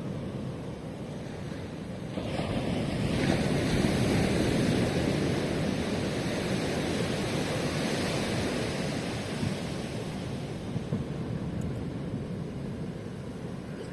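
Ocean surf: a wave breaks about two seconds in, and its wash slowly fades away.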